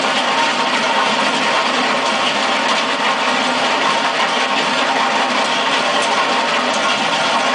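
Simex T600 wheel cutter on a Mustang 2076 turbo skid steer grinding a trench into concrete, a steady, even grinding over the skid steer's engine running under load.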